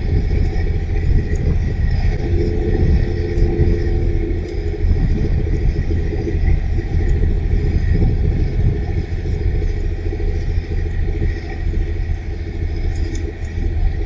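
Fishing boat's marine diesel engine running steadily as the boat moves under way, a low rumble throughout. A humming tone comes up more strongly for a couple of seconds a few seconds in.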